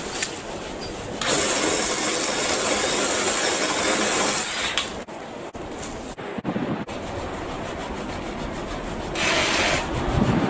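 BLACK+DECKER 18V cordless saw cutting a tree branch: the motor runs for about three seconds, stops, and comes on again briefly near the end, with a few knocks in between.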